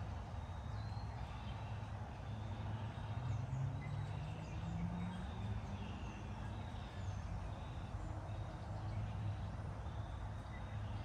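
Outdoor ambience: a steady low rumble with faint bird chirps above it. A low tone rises briefly about three to five seconds in.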